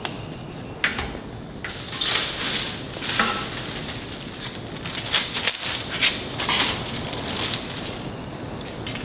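Metal lug nuts clinking and jingling in a plastic bag as they are handled: a quick run of sharp metallic clicks with brief high rings, loudest in the middle and settling down near the end.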